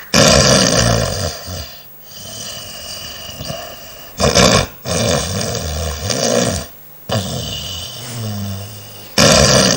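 A woman snoring loudly in her sleep, heard from an overnight recording: rumbling snores that break off about every two seconds. It is the habitual snoring known as rhonchopathy.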